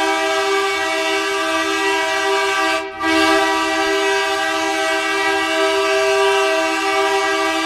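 Hockey goal horn sounding a loud, steady chord of several tones, cutting out briefly about three seconds in and then sounding again.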